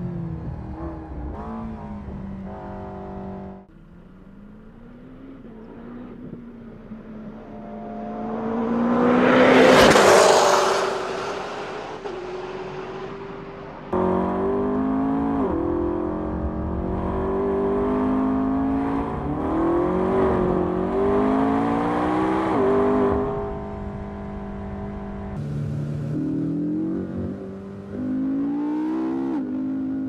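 McLaren 12C twin-turbo V8 engines at speed on a track. The engine note climbs through the revs and drops sharply at each upshift. About ten seconds in there is a loud pass-by that swells and fades, and the sound changes abruptly several times.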